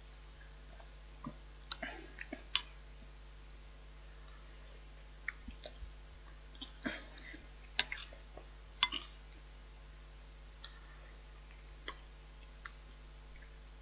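Eating sounds: about a dozen irregular, sharp clicks and clinks of cutlery against a dish while spotted dick and custard is eaten, with pauses between.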